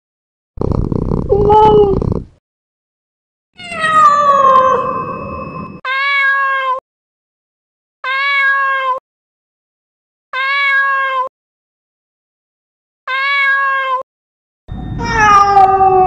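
Domestic cat calls separated by silence: a rough first call, then a long falling meow, then the same short meow four times about two to three seconds apart, and another long falling meow near the end.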